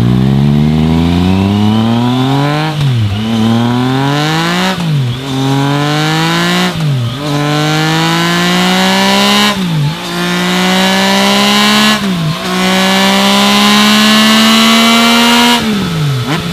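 Sport motorcycle engine accelerating hard through the gears: the pitch climbs steadily, then drops sharply at each upshift, about six shifts. Each gear runs longer than the one before.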